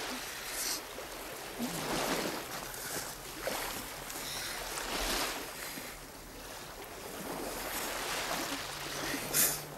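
Small waves washing onto a pebble shore: a hiss of surf that swells and ebbs every second or two, with a short sharp hiss near the end.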